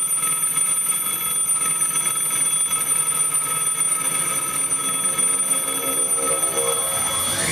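Sustained electronic ringing tone, alarm-like, held steady at several high pitches as the opening effect of a dance music track, with a quick rising sweep near the end.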